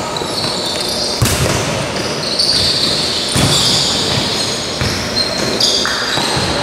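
Futsal ball being kicked and struck on an indoor court, several sharp thuds about a second apart, with athletic shoes squeaking on the court floor between them.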